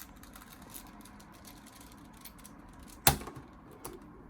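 Plastic pieces of a 5x5 Rubik's cube clicking as the cube is handled and turned, with small scattered clicks and one sharp, loud click about three seconds in.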